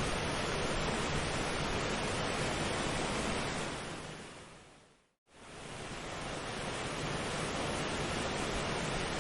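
Steady, even rushing noise of a nature-sound track, in the manner of surf. It fades out to silence about five seconds in and fades straight back in, the seam where the recording loops or is spliced.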